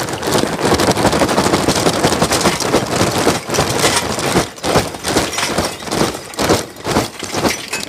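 Charcoal poured from a metal bucket into a metal mangal, a dense rattling clatter of many lumps hitting the grill box. About halfway through it breaks into separate bursts of clattering with short gaps.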